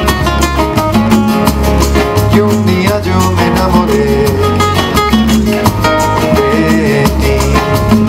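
Acoustic guitars playing a flamenco-style instrumental passage: fast rhythmic strumming over deep bass notes that change about once a second.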